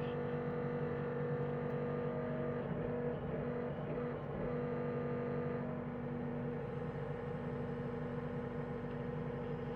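John Deere 325G compact track loader's diesel engine running at a steady speed, with an even, unchanging hum.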